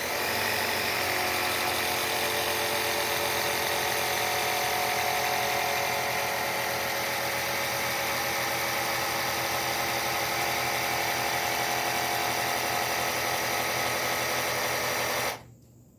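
Electric air pump running steadily to pressurise a home-made PVC air launcher's chamber, its tone sagging slightly as it goes, then switching off abruptly about fifteen seconds in.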